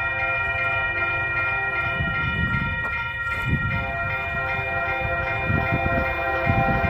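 Railroad grade-crossing bell ringing in rapid, even strokes, over the low rumble of an approaching train.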